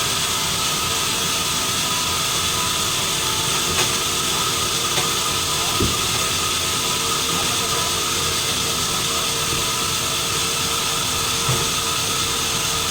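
Sawmill machinery running steadily: a continuous hiss with a high, even whine, and a few faint knocks.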